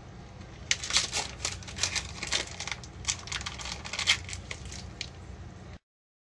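Plastic packaging of curry roux cubes crinkling and crackling in quick irregular bursts as it is handled and opened, over a low steady hum; the sound cuts off suddenly near the end.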